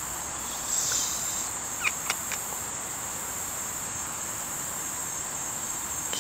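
Steady high-pitched buzz of an insect chorus, with a brief rustle about a second in and a few light clicks about two seconds in.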